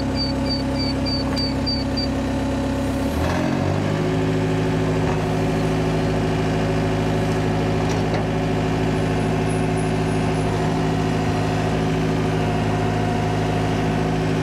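Gehl compact track loader's diesel engine running, then throttled up about three and a half seconds in to a higher, steady speed under load as it pulls a stuck tractor out of the mud on a tow strap.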